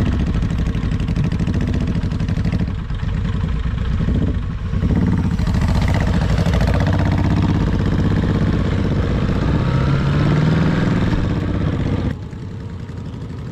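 Custom chopper motorcycle's engine running under way, its pitch rising as it picks up speed about ten seconds in, then falling to a quieter level near the end.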